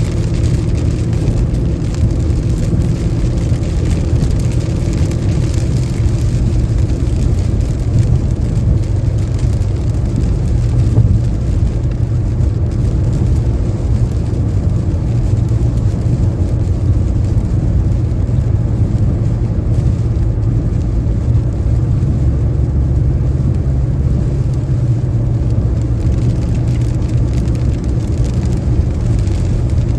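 A car driving at highway speed in the rain: a steady low rumble of tyres and engine on wet pavement, with a faint hiss of rain.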